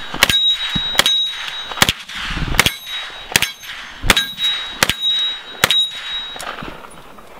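A series of about nine sharp clanging hits, evenly spaced roughly three-quarters of a second apart, each with a brief high ring; they stop about six and a half seconds in.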